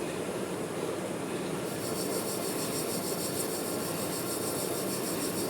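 Manual metal lathe running with a steady mechanical hum; a higher, evenly pulsing hiss joins about two seconds in.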